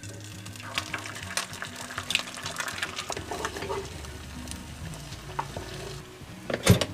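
Eggs frying in a pan, crackling with many small pops. Near the end come a few sharp knocks of a utensil against the pan.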